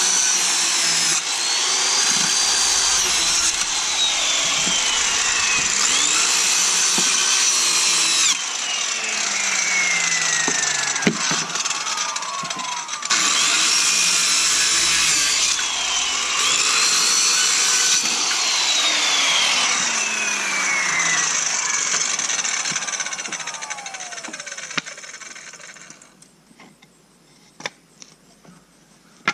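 Corded circular saw cutting through pallet boards, the motor whine rising as it spins up and falling as it winds down between cuts, several times over. Near the end the saw stops and a few knocks follow.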